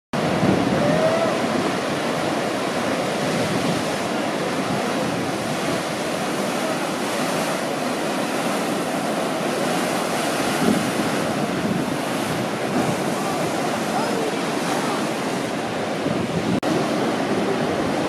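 Steady rush of ocean surf breaking, with wind on the microphone.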